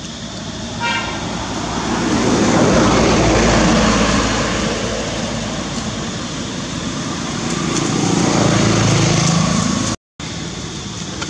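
Road traffic: vehicles pass by, the engine and tyre noise swelling and fading twice, with a short horn toot about a second in.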